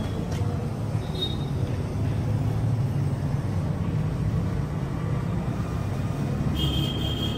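Steady low rumble of road traffic, with a brief high-pitched squeal starting about a second before the end.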